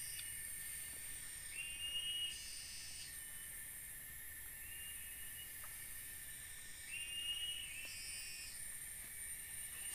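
Tropical rainforest ambience: a steady high-pitched insect drone, with a short whistled animal call repeating every two to three seconds.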